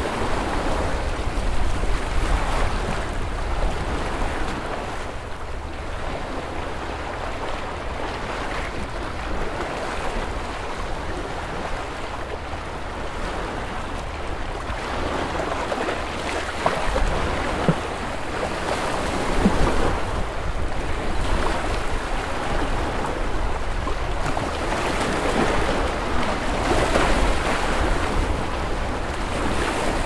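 Lake water washing against the shore in small waves, swelling and easing every few seconds over a low rumble, with a few sharper splashes a little past halfway.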